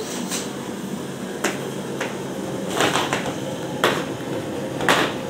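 A long wooden stirring stick working through milk and grated carrots in a large aluminium pan. It scrapes and knocks against the metal four times, about a second apart, over a steady background hiss.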